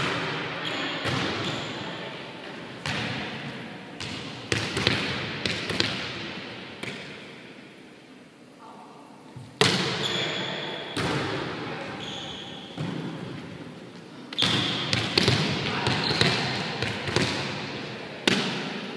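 Volleyball being served, passed and set: sharp slaps of hands on the ball at irregular intervals, each ringing out in a large gymnasium's echo.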